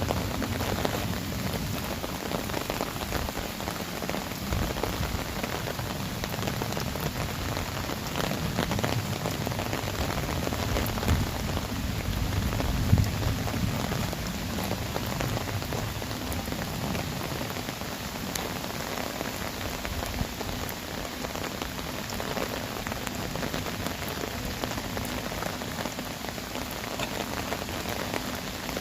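Heavy rain pouring down steadily onto earthenware crocks (onggi jars), a dense patter of drops, with one louder drop hit about halfway through.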